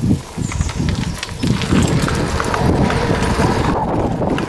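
Wind buffeting the microphone of a camera on a moving bicycle: a loud, gusty low rumble with light ticks over it.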